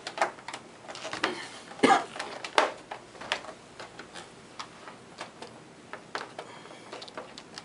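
Plastic case clips of a Gateway ZX4300 computer housing clicking and snapping as the case is pried apart along its seam. The clicks are irregular and sharp, the loudest about two seconds in, with fainter ones later.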